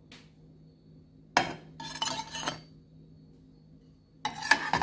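A flat spatula scraping and clinking against a frying pan as it slides under a bread pizza to lift it: two bursts, about a second and a half in and again near the end.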